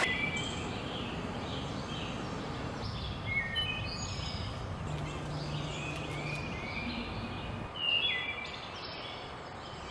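Several small birds calling: short high chirps and down-slurred notes in scattered clusters over a steady background hiss.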